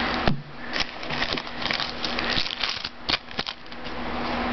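Trading cards and their packs being handled: a run of small crinkling clicks and rustles, with a few sharper clicks about a second and about three seconds in.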